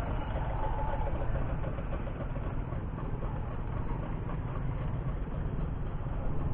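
Road traffic: vehicle engines running steadily, with a low rumble.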